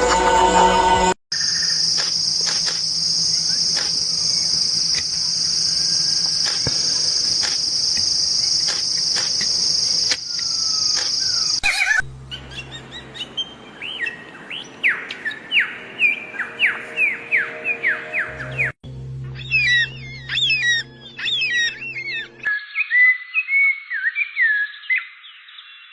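A string of spliced animal-sound clips. First a steady high-pitched buzz for about eleven seconds, then, after a cut, birds calling: runs of quick falling chirps, followed by a different set of looping chirps and a thinner-sounding stretch of chirps near the end.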